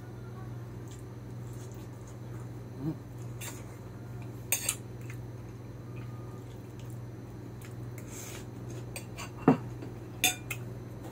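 Spoon and fork clinking and scraping against a plate during eating: a few short, sharp clinks, the loudest about nine seconds in, over a steady low hum.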